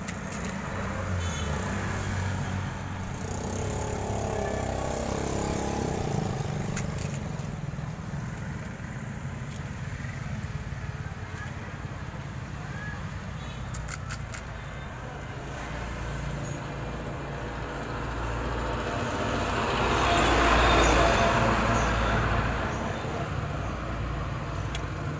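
Road traffic with a steady low engine rumble. Roughly three-quarters of the way through, a vehicle passes and the sound swells, then fades again.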